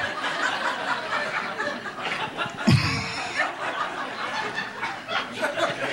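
Comedy club audience laughing at a punchline, a steady wash of many people's laughter with one louder burst nearly three seconds in.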